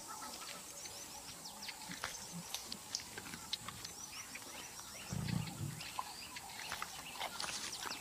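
Leopard feeding on a carcass in a tree, giving a short low growl about five seconds in, over quiet bush ambience with birds chirping.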